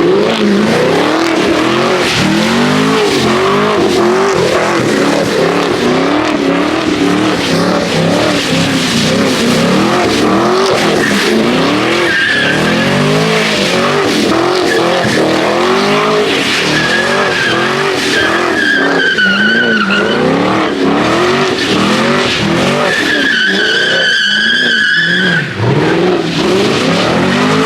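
A car engine revving hard, its pitch climbing and dropping over and over, as the car is slid around on wet pavement. Its tyres squeal in several stretches of a second or more, from about the middle on.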